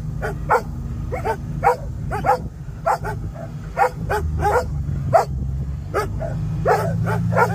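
Dogs barking excitedly over and over, roughly one to two barks a second, over the steady low running of a utility vehicle's engine.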